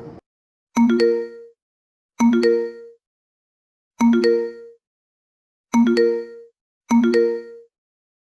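Ringtone: a short bell-like chime chord, struck and fading quickly, repeated five times at uneven spacing with silence between.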